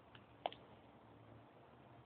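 Near silence with a faint low hum, broken by one short sharp click about half a second in, just after a fainter tick.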